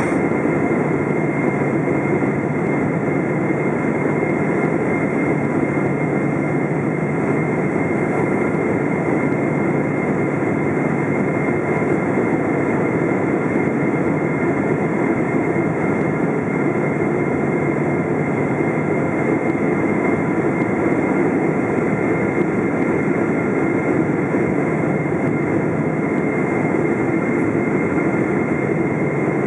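Cabin noise of a Boeing 777-200 on final approach, heard beside its GE90 turbofan: a steady rush of engine and airflow, with a few steady high whining tones from the engine.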